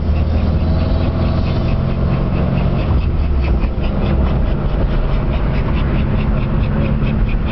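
Classic Mini's engine running steadily in the cabin on the move, with a dog panting quickly and evenly close by, several breaths a second.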